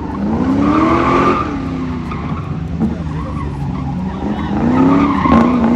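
Autocross car sliding through a cone course on wet tarmac: the engine revs up and down in two swells, about a second in and again near the end, with the tyres skidding.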